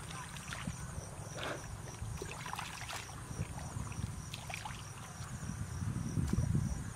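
Bare feet wading through shallow muddy water, sloshing and splashing with each step. An insect chirps steadily in the background.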